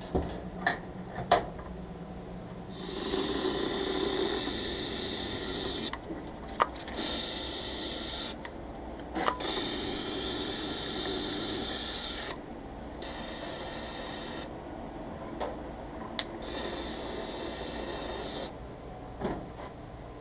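A few sharp metallic clicks, then a handheld compressed-air gun hissing in about four long bursts with short pauses between them.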